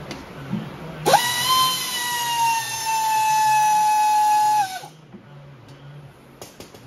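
A power tool's motor whine, spinning up fast to a high pitch, sagging slightly as it holds for about four seconds, then stopping abruptly, as it runs out the last oil pan bolts on an engine being torn down.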